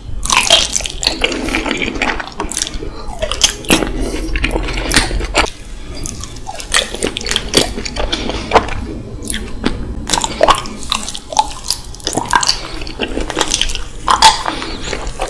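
Close-miked eating of raw honeycomb: bites into the comb, then wet, sticky chewing, lip-smacking and sucking of honey, a dense run of sharp smacks and clicks.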